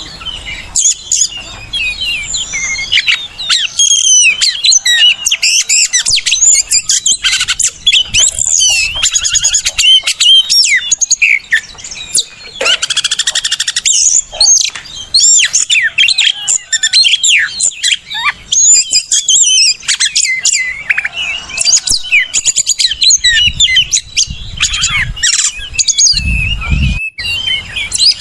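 Oriental magpie-robin song: a loud, fast, varied run of whistles and chirps that sweep up and down, with a brief low rumble near the end.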